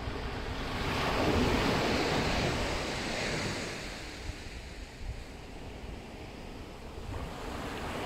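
Sea surf breaking on a sandy beach and washing up the shore, swelling about a second in, easing off, then building again near the end as the next wave comes in. Wind rumbles on the microphone underneath.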